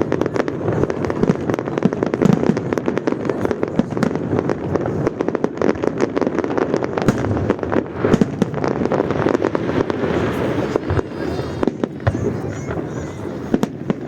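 Fireworks salute: a dense, continuous run of loud bangs and cracks from shells bursting, one after another with no pause.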